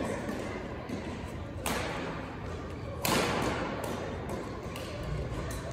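Badminton rackets striking a shuttlecock in a doubles rally: a sharp hit about a second and a half in and a louder one about three seconds in, each echoing briefly in the hall, with a few lighter clicks between.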